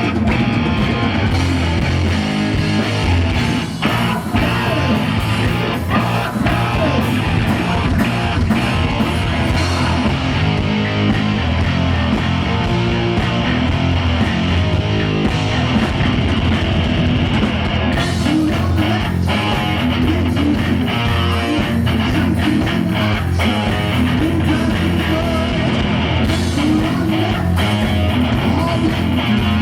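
Live heavy metal band playing loud and steady, with distorted electric guitar and drums, recorded from the audience.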